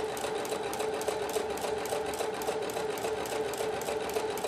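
Husqvarna Viking Platinum Plus sewing machine running steadily in permanent reverse, its needle clicking at an even, fast rhythm over a steady motor hum. It is sewing the tiny 0.4–0.5 mm stitches of a mending stitch.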